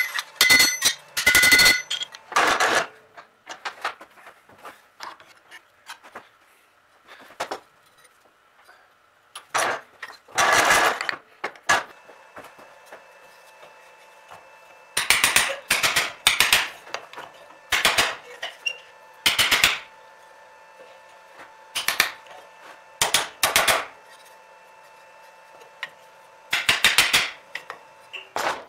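Hammer blows on a bent pressed-steel part of an old Ertl toy tractor, in short runs of quick taps with pauses between them: the part is being beaten back into shape. The first blows ring out as on an anvil; the later ones are duller, struck over a wooden block held in a bench vise.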